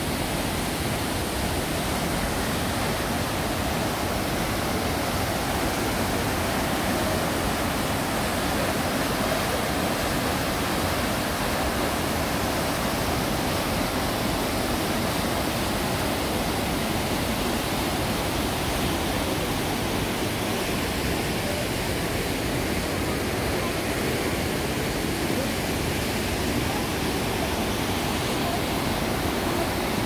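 Düden Waterfall: a steady, unbroken rush of falling water.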